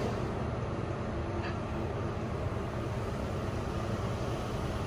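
Steady low hum and rumble inside an Otis Gen2 Regen machine-room-less lift car as it travels upward.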